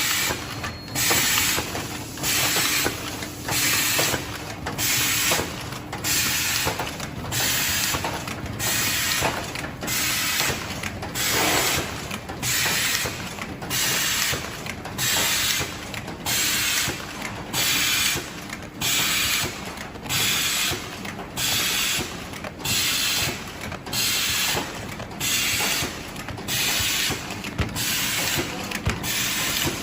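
Automatic can-seaming machine running steadily in repeated cycles, a short burst of hiss about once a second over a constant mechanical hum.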